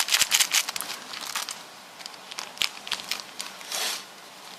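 Crinkly rustling and crackling from something being handled close up. There is a quick run of crackles in the first second and a half, then scattered ones, with a longer rustle a little before the end.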